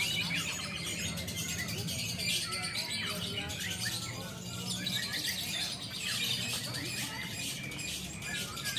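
A lovebird singing a long, unbroken chattering song, rapid high twitters running on without a pause. This is the sustained 'ngekek' valued in lovebird song contests. A steady low hum runs beneath it.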